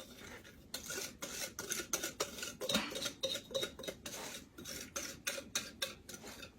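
A kitchen utensil scraping and clinking against a mixing bowl in quick repeated strokes, about three a second, as pecan pie filling is scraped out of the bowl into the pie shell.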